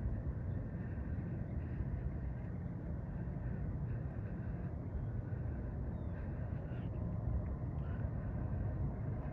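Distant Boeing 737-800 with CFM56 jet engines at takeoff power, a steady low rumble as the airliner rolls down the runway.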